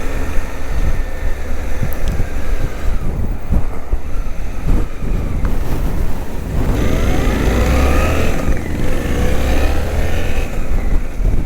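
Motorcycle engines running with a heavy low rumble. From about seven seconds in, an engine's pitch climbs and falls again as it revs.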